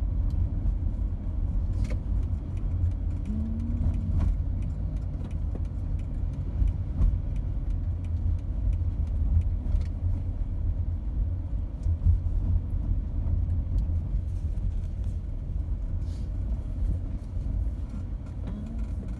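A car driving slowly, its engine and tyres making a steady low rumble, with scattered small clicks and rattles.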